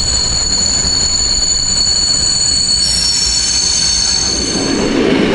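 Flåm Railway train's steel wheels squealing against the rails over the steady rumble of the carriage: several high, held squeal tones that stop near the end as the lower rumble grows louder.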